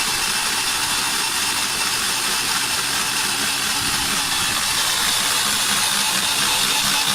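Kong Sung PW14 electric core drill motor running steadily, a high-pitched hiss-like whine with a faint low hum under it.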